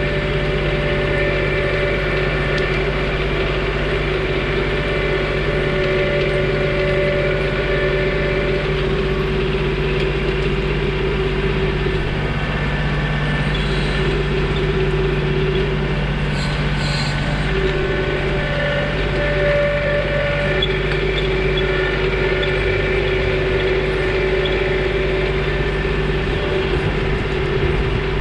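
John Deere 2032R compact tractor's three-cylinder diesel engine running steadily at a constant speed.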